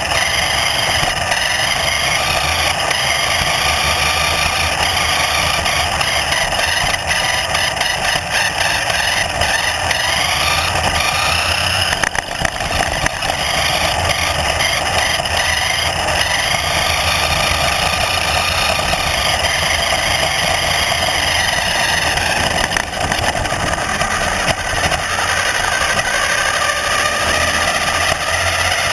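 A motor running steadily, its high whine gliding up and down in pitch as it speeds up and slows down.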